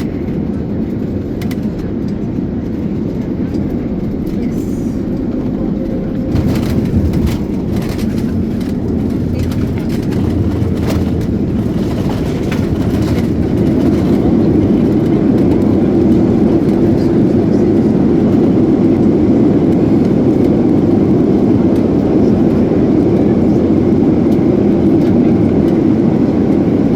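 Cabin noise inside an Airbus A321neo with CFM LEAP-1A engines during landing: a steady, loud rush of engine and airflow noise. A cluster of knocks and rattles comes about six to thirteen seconds in, and from about fourteen seconds on the noise is louder and steady.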